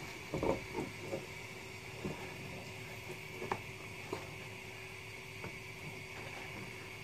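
Quiet steady kitchen background hum, with a few soft small clicks and knocks, most of them in the first second or so.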